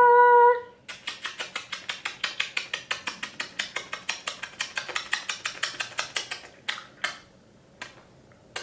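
A person kissing a small chihuahua over and over: a fast, even string of lip-smack kisses, about seven a second for some five seconds, then a few separate kisses.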